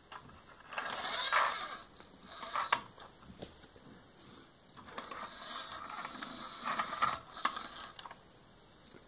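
Plastic toy vehicles, first an ambulance and then a fire engine, pushed along a carpet play mat: two spells of rattling wheels and gearing, with a few sharp clicks as the toys are set down.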